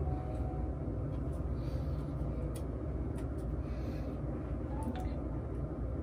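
Steady low rumbling background noise with a few faint clicks.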